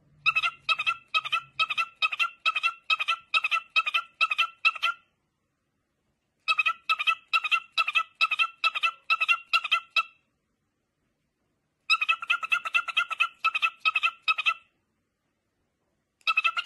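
Cockatiel giving short, evenly spaced chirps, about three a second, in runs of a few seconds with silent gaps between them; a fourth run starts near the end.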